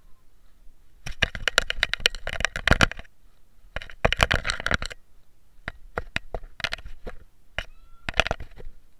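Scratching and crackling handling noise right on a small action camera strapped to a rooster, as a hand and feathers rub against it. There are two long bursts of rubbing, then a run of separate sharp clicks, with a faint short rising chirp near the end.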